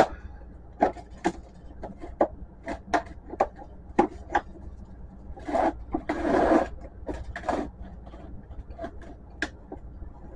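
Plastic side panel and housing of an HP Photosmart C4480 printer being worked by gloved hands to pop it off: a run of sharp plastic clicks and knocks, with a few seconds of scraping and rubbing a little past the middle.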